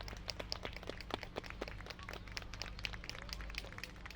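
Scattered applause from a crowd: many separate sharp claps, unevenly spaced, over a steady low hum.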